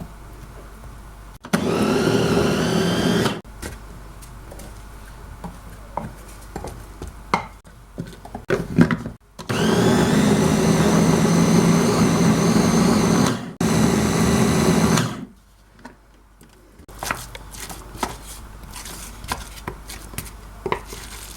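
Electric food processor grinding fresh ginger and garlic in three bursts of about two, four and one and a half seconds, each spinning up with a rising whine. Light clicks and knocks come between the bursts.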